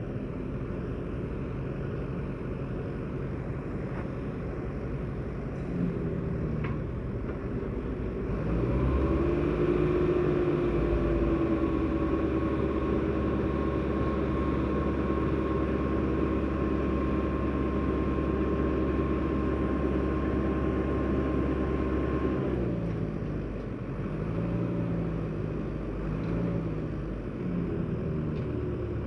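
Crane truck's engine running: it speeds up about a third of the way in and holds a steady, higher pitch with a whine for about fourteen seconds, then drops back to a lower, uneven idle.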